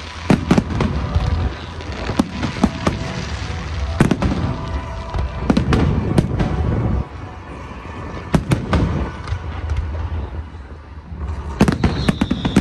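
Fireworks display: rapid bangs and crackles from bursting aerial shells over a low rumble. The display eases off for a few seconds after the middle, then a fresh volley of bangs comes near the end, with a high whistle sliding down.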